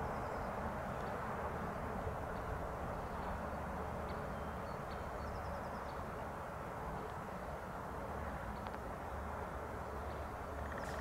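Steady outdoor background hiss with no distinct events, a few faint high chirps over it.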